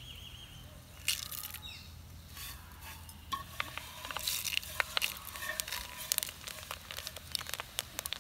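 Fenugreek and cumin seeds frying in hot oil for a tempering: a low sizzle with sharp pops and crackles that come more often from about four seconds in.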